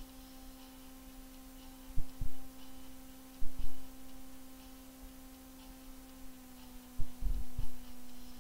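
A steady electrical hum, broken by dull low thumps that come in small groups: two about two seconds in, two more about a second and a half later, and three in quick succession near the end.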